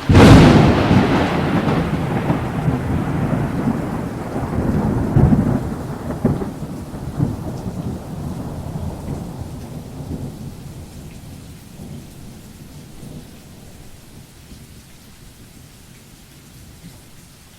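Thunderclap: a sudden loud crack, then a rolling rumble that swells again about five seconds in and slowly dies away, leaving a faint steady rain hiss.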